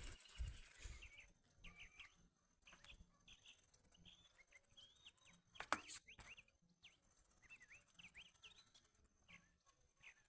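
Faint small-bird chirps: short, quick up-and-down calls repeating on and off, with a single sharp click about six seconds in.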